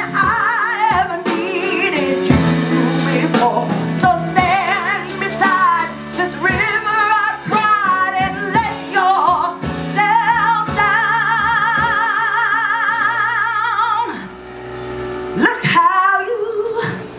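A woman singing a soul-style ballad over instrumental backing. She holds long notes with wide vibrato and breaks off briefly about fourteen seconds in.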